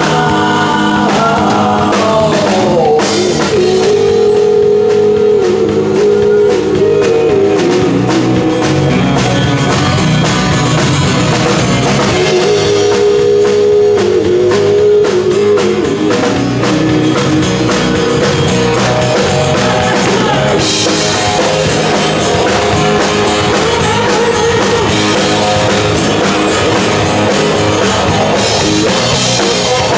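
Rock band playing a song: electric guitar and drum kit with a singer carrying a melody over them.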